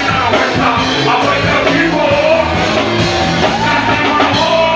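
Live music over a venue PA: a band with a steady bass line, with a vocalist's voice on top.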